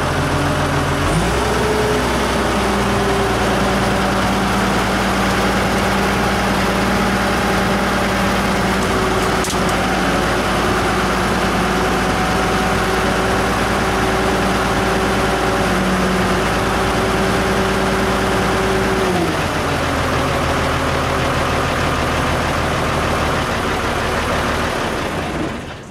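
Hyundai wheel loader's diesel engine running, speeding up about a second in and holding a steady higher speed, then dropping back to a lower speed after about nineteen seconds and fading out at the very end.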